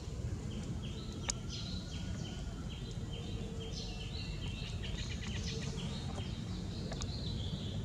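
A rapid run of short, high-pitched animal chirps, each dropping in pitch, a few per second, over a steady low outdoor rumble, with a sharp click about a second in.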